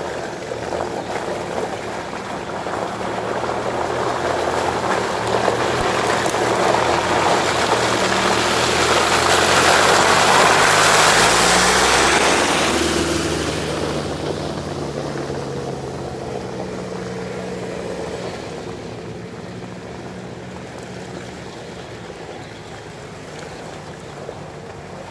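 Toyota 4x4's engine working hard as it drives through deep mud and passes close by, louder and louder up to about halfway through, its pitch dropping as it goes past, then fading as the next off-roader comes on behind.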